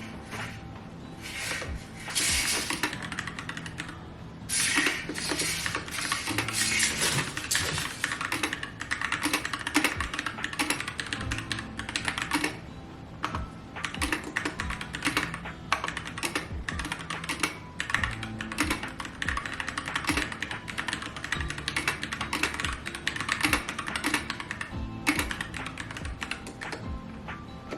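Fast, continuous typing on a keyboard, many keystrokes a second with brief pauses, over background music.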